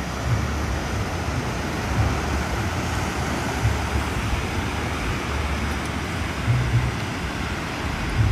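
Steady noise of sea surf and wind, with the wind buffeting the microphone in low rumbling gusts now and then.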